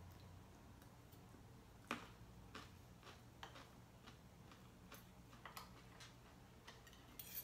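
Faint, irregular clicks of a metal spoon and fork against a plate of noodles and against each other, the loudest about two seconds in.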